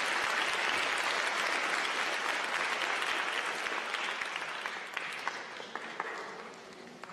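Audience applauding, dying away over the last few seconds into a few scattered claps.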